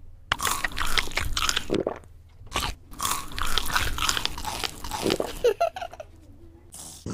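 Cartoon eating sound effect: loud crunching bites and chewing in quick succession, in two bouts with a short pause between, as a burger is eaten, ending with a brief sliding tone about five seconds in.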